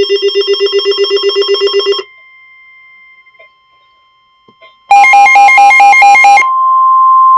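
Weather radio sounding an alert for a severe thunderstorm warning. A loud, fast-pulsing electronic beeping cuts off about two seconds in. After a short pause, a burst of rapid alternating beeps comes about five seconds in and gives way to a steady high alert tone.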